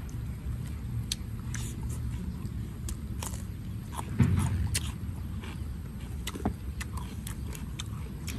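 Fresh lettuce leaves being torn and folded by hand, with scattered small crisp crackles and clicks over a steady low rumble; a dull thump about four seconds in.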